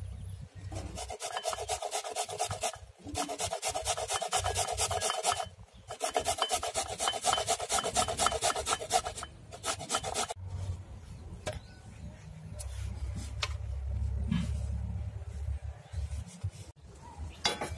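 Fresh turmeric root being rubbed on a grater in rapid rasping strokes, in three runs with short pauses, followed by softer scattered scrapes and taps.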